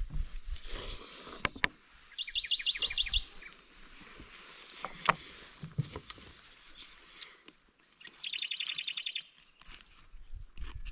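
A small songbird singing a rapid, high trill of about ten evenly spaced notes, twice, about six seconds apart. A few sharp clicks or knocks and some low rumble are heard between the songs.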